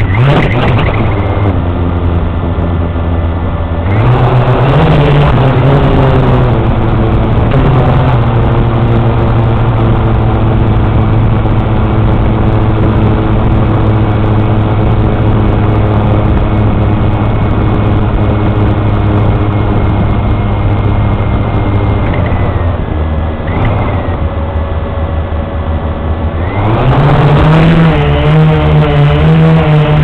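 Blade 350 QX quadcopter's four brushless motors and propellers buzzing steadily in flight, the pitch stepping up about four seconds in, dipping a little later on, and rising again near the end as the throttle changes.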